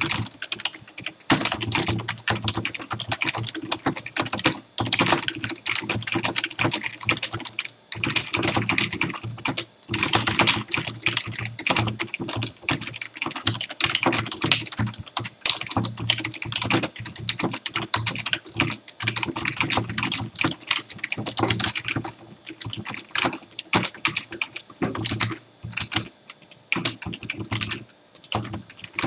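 Fast, continuous typing on a computer keyboard: dense runs of key clicks, broken by short pauses of about a second now and then.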